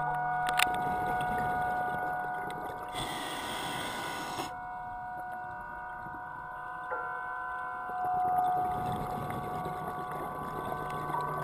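Underwater ambience on a scuba dive, recorded through a GoPro housing. A steady, whining hum of several pitched tones runs throughout, typical of a boat's engine and propeller carried through the water. A diver's regulator breath hisses for about a second and a half, about three seconds in.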